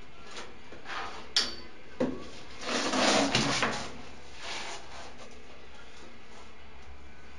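Handling noises of hands working at ceramic wall tiles and a chrome towel rail: a sharp click about a second and a half in, then a couple of seconds of rubbing and scraping.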